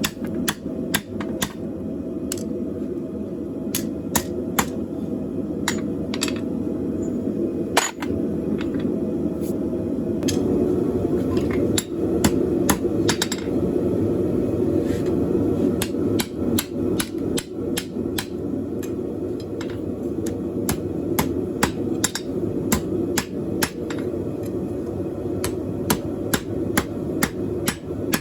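Hammer blows on a hot 1/4 x 3/4 inch flat steel bar on an anvil, splitting the bar's end over a cutoff tool: many sharp strikes in irregular runs, with a steady low rumble underneath.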